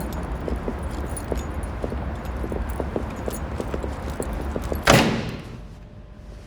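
Foley of gear being handled: small metallic clinks and rattles over a steady low rumble. A single loud impact just before the end cuts in, then dies away.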